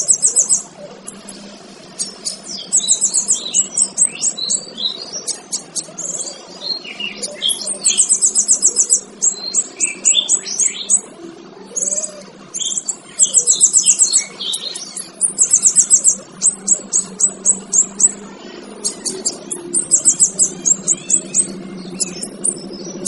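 Male kinoy bird singing: repeated fast, high, buzzy trills about a second long every couple of seconds, mixed with short, sharp chirping notes.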